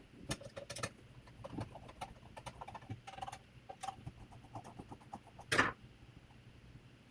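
Hands handling a metal electrical-box switch controller and removing the screws from its cover plate: a string of small irregular clicks and taps, with one louder knock about five and a half seconds in.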